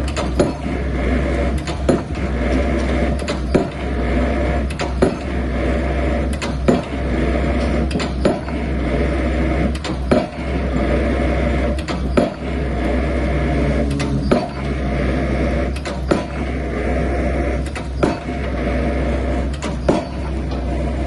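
Pile-driving hammer striking a 30 x 30 cm concrete pile, a sharp blow about every two seconds, over the steady running of the rig's engine.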